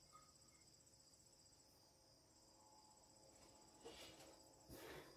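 Near silence with a faint, steady, high-pitched insect trill, typical of crickets, and a few soft rustles near the end.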